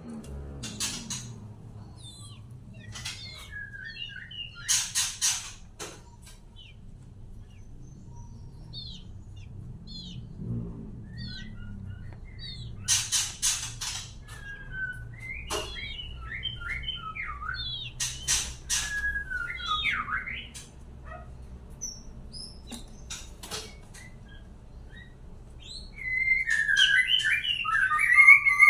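Captive murai batu (white-rumped shama) chirping and whistling: scattered short whistled notes and glides, broken by several clusters of short harsh bursts, then a loud, dense warbling run of whistles near the end. A low steady hum sits underneath.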